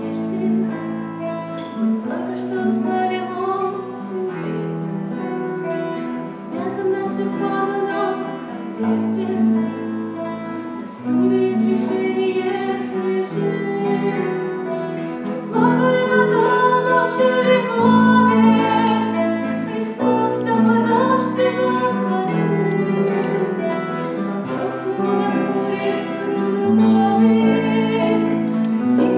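Live band music: a woman singing lead over strummed acoustic guitars, bass guitar and keyboard.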